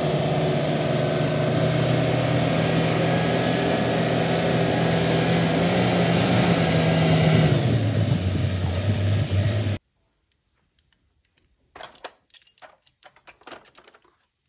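Wheel loader's diesel engine running under load while pushing rubble, with a thin high whine that rises about five seconds in; the engine note drops near eight seconds and the sound cuts off abruptly near ten seconds. Near the end, faint clicks and clatter of plastic toy vehicles being handled in a basket.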